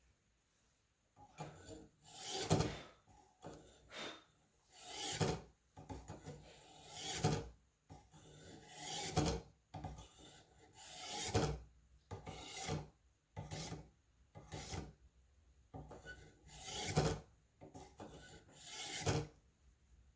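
Steel hunting-knife blade drawn repeatedly through a Warthog knife sharpener's spring-loaded 1000-grit diamond plates, giving a rasping scrape. The stroke comes roughly every two seconds, with lighter strokes in between, while the edge is honed on the medium angle setting.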